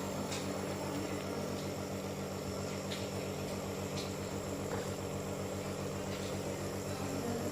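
A steady low mechanical hum with an even hiss over it, from a small machine running without pause; a few faint short clicks now and then.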